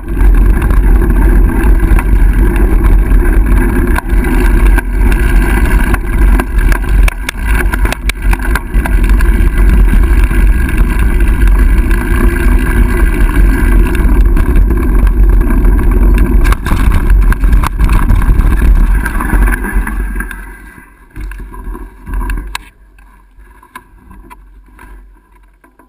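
Mountain bike ridden fast over a wooden plank boardwalk: a loud, constant rumble and rattling clatter from the tyres on the boards, with heavy wind buffeting on the camera's microphone. About twenty seconds in it drops to much quieter as the bike comes off the planks onto a dirt trail.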